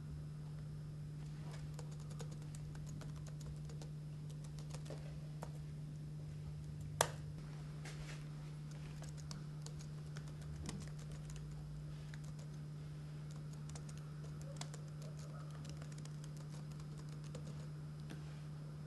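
Typing on a laptop keyboard: irregular key clicks as a search is typed in, with one sharper, louder click about seven seconds in. A steady low hum runs underneath.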